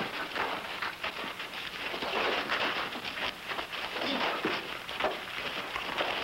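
Scuffling and blows of a fistfight on a dirt street: a dense, irregular run of knocks and thuds over a steady hiss.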